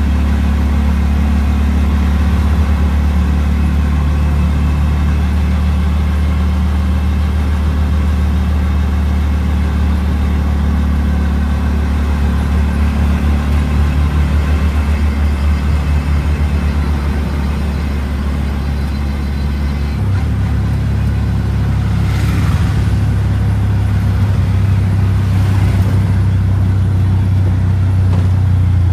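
CNG autorickshaw's single-cylinder engine running under way, heard from the passenger seat in the open cabin as a steady low drone. Its note steps up in pitch about two-thirds of the way through.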